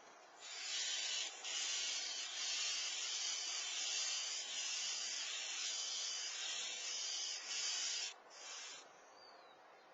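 Steady high hiss of noise that starts about half a second in and stops about eight seconds in, with a faint short downward chirp near the end.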